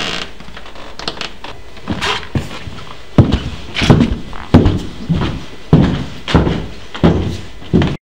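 Heavy banging on a wooden door: a few light knocks, then from about three seconds in a run of loud thuds, roughly two a second, each ringing briefly in the room.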